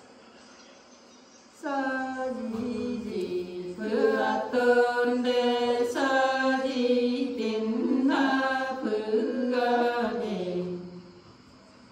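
Women singing a Nùng folk song together, unaccompanied, in long, drawn-out notes that slide between pitches. The singing begins about two seconds in, grows fuller about four seconds in, and stops near the end.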